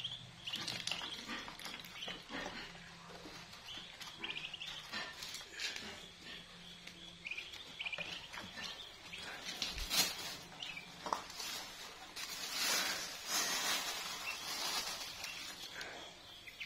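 Three-day-old ducklings peeping with many short, high calls. A sharp knock sounds about ten seconds in, and there is a stretch of rustling about twelve to fifteen seconds in.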